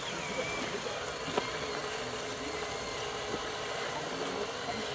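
Radio-controlled scale model truck's motor running steadily, with faint higher whines that rise and fall and a sharp click about a second and a half in.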